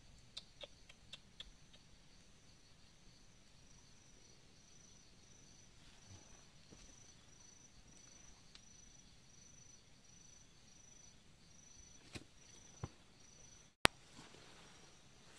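Insect chirping high and faint in an even pulsing rhythm. A few light clicks come in the first second and a half, and there is a single sharp click near the end.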